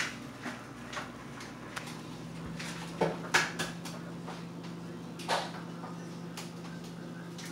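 Air-driven aquarium sponge filter bubbling, its air bubbles breaking at the water surface in irregular splashy pops and gurgles, with a cluster about three seconds in. A steady low hum comes in underneath about a second and a half in.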